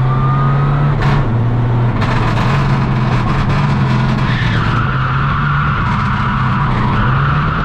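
Subaru WRX STI's turbocharged flat-four engine heard from inside the cabin under hard driving on track, its pitch stepping up and down several times. About halfway through, the tyres start squealing through a corner and keep squealing to the end.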